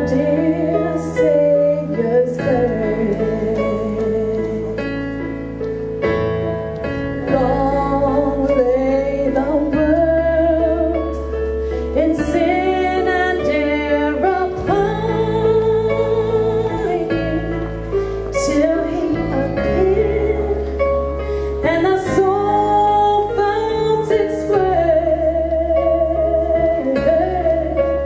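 Voices singing a Christmas song over a backing track with sustained bass and keyboard chords.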